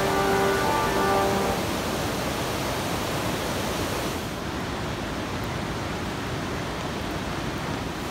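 Background music with sustained notes fades out over the first second and a half, leaving a steady rushing noise of water.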